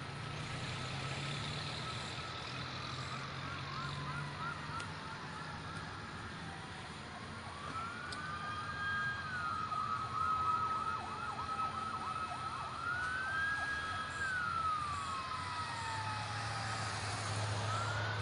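Emergency vehicle sirens approaching, with at least two sirens overlapping: slow wails that rise, hold and fall, and fast yelping sweeps. They come from vehicles responding to a car fire. A low engine rumble grows near the end as a vehicle draws close.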